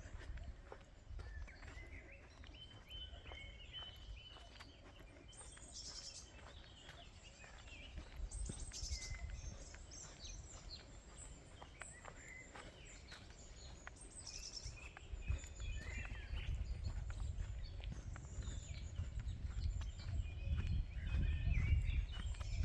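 Several small birds chirping and calling, with high quick trills about six, nine and fourteen seconds in, over a low rumble that grows louder in the second half.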